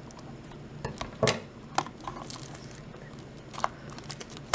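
Scissors snipping at the plastic tag fastener on a small hard-plastic toy, with handling of the plastic between cuts. There are a few sharp clicks, the loudest about a second in.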